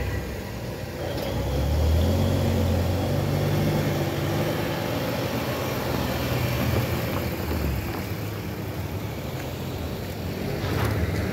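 A small hatchback car pulls away and drives across the level crossing, engine and tyres. Its engine note rises about two seconds in and fades out by about eight seconds. Near the end another car approaches.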